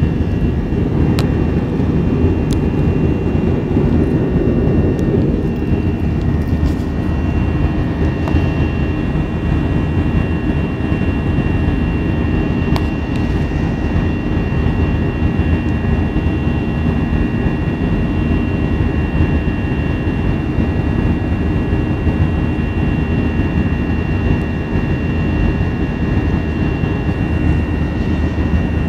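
Jet airliner cabin noise in flight: a steady low rumble of engines and airflow, with a faint steady high whine above it and a few faint clicks.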